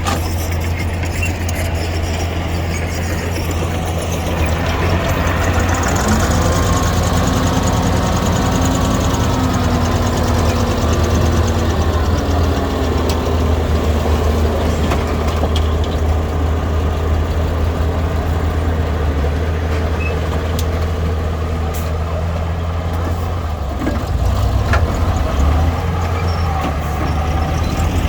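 Diesel engine of earthmoving machinery running under work, a steady low drone whose note wavers up and down for several seconds a few seconds in, with a brief louder stretch near the end.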